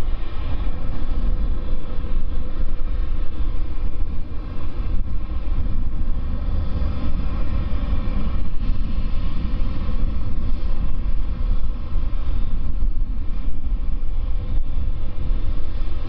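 Boeing 787-9's GEnx turbofan engines running at taxi power as the airliner rolls past: a steady deep rumble under a whine made of several steady tones.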